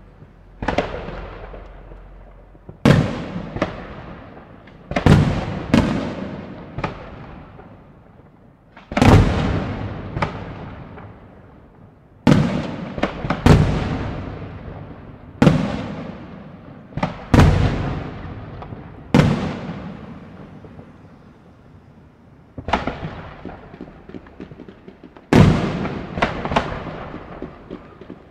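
Aerial firework shells bursting one after another: sharp bangs every second or few seconds, sometimes two or three close together, each followed by a long echoing rumble that dies away.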